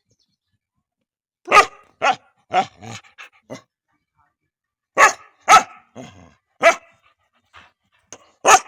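A dog barking in short, sharp volleys: a quick run of about six barks, a pause of a second or so, then another run of loud single barks.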